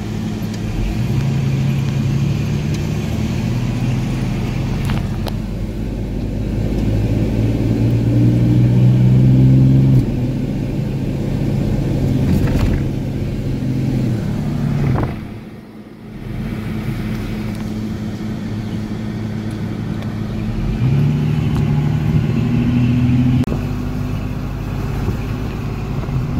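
Car engine and road noise heard from inside a moving car, the engine note rising and then dropping about ten seconds in, with a brief muffled dip a little past halfway.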